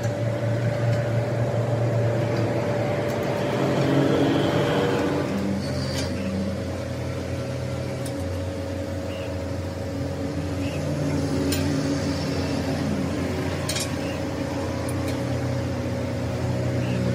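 A machine running steadily: a low hum with a constant whine, and a few light clicks and clinks.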